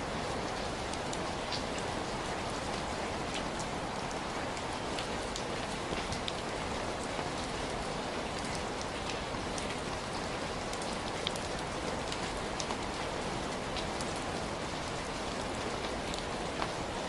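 Heavy rain falling steadily, a dense even hiss with scattered sharper drops ticking on a surface.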